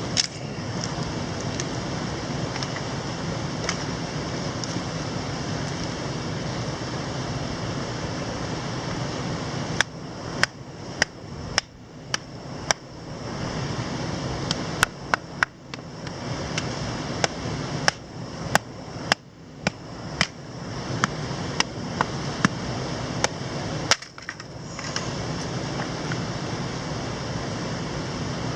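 Sharp, irregular knocks of batoning, a wooden baton striking the spine of a knife to split firewood, starting about a third of the way in and coming roughly once or twice a second. Under them the steady rush of a mountain stream.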